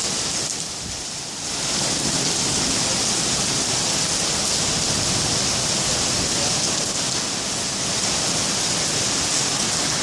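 Steady hiss of rain and running storm water, easing briefly about a second in.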